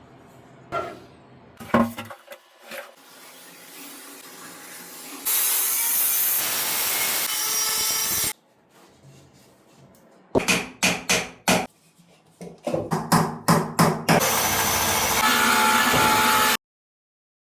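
Tool work on a toy truck being restored, in short cut clips: a few knocks, a stretch of steady hissing, a run of quick rubbing or scraping strokes, then another steady hiss that cuts off suddenly.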